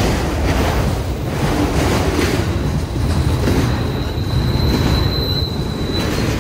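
Freight train rolling past: steel wheels rumbling and clacking over the rails as autorack and double-stack intermodal cars go by. A high, steady wheel squeal starts about two and a half seconds in and fades out near the end.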